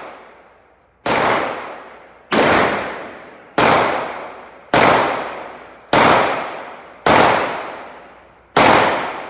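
A powerful gun fired in single shots, seven in a row about a second and a quarter apart, each bang ringing out and dying away before the next.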